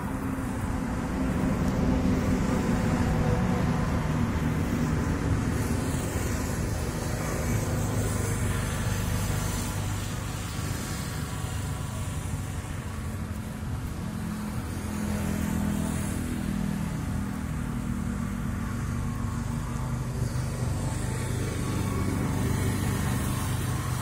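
A motorcycle engine running steadily: a continuous low rumble whose pitch wavers slightly.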